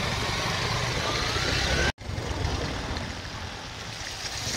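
Cascading mountain stream giving a steady rushing noise, which cuts off abruptly about two seconds in. Then comes a quieter engine hum from motorcycles approaching on the road, growing louder near the end.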